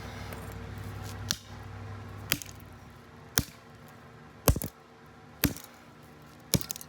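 A broken metal door handle being smashed to pieces: six sharp metallic blows land at about one a second, one of them a quick double strike.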